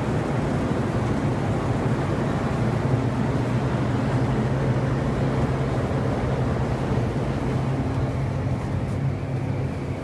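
Steady low drone of a ferry's engines and machinery heard inside the ship, with a low hum that grows stronger about three seconds in.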